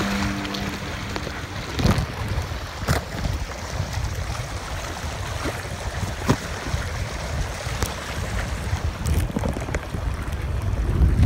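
Water rushing and splashing past the hull and outrigger float of a sailing canoe under way, with wind buffeting the microphone. A few sharp knocks come through at intervals.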